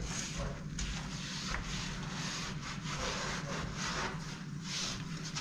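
Hand rubbing along a metal window frame in repeated, irregular strokes, about one or two a second.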